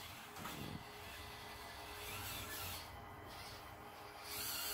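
Faint steady whir of a 1:24-scale Axial SCX24 RC crawler's small electric motor and gears as it drives, growing a little louder just before the end.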